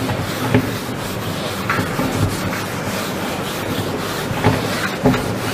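Whiteboard eraser wiping across a whiteboard in repeated strokes: a steady rubbing.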